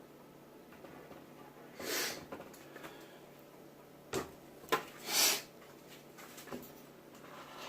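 A piece of cardboard scraping across pine boards as it spreads wood glue, in a few short swipes, with a couple of sharp clicks in between; the last swipe is the loudest.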